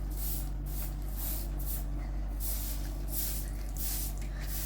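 A series of short swishing strokes, about two a second and unevenly spaced, over a steady low hum.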